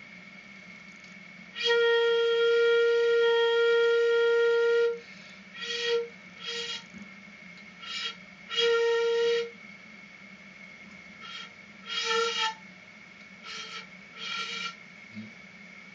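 Shakuhachi (bamboo end-blown flute) being test-blown: one long held note of about three seconds, then a string of shorter notes and brief blips.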